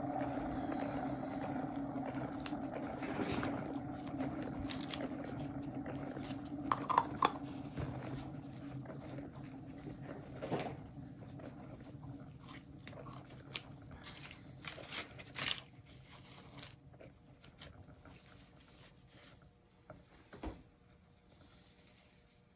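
Paint-pouring turntable spinning with a canvas on it: a steady whirring hum that slowly fades as the spin coasts down, with a few light clicks along the way.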